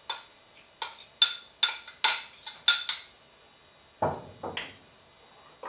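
A glass measuring cup clinking against the rim of a glass mixing bowl as it is tapped empty: a rapid series of sharp, ringing glass clinks over about three seconds, then a duller knock about four seconds in.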